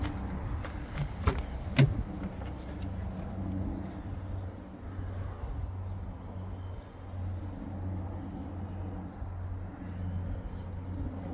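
Two sharp knocks about half a second apart, as the car's boot floor cover and boot are shut, the second the louder. Then a steady low hum with faint handling noise.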